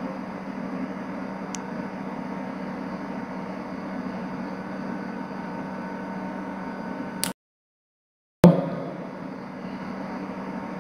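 Steady low hum of room background noise picked up by the microphone. About seven seconds in the sound cuts out to dead silence for about a second, with a click as it drops out and again as it returns.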